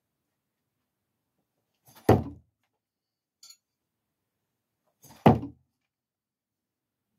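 Two thrown GI tanto knives hitting the target close by, about three seconds apart, each landing as a single heavy thunk.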